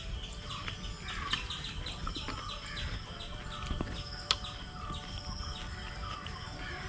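Small birds chirping, a quick run of short calls repeated over and over, with a single sharp click about four seconds in.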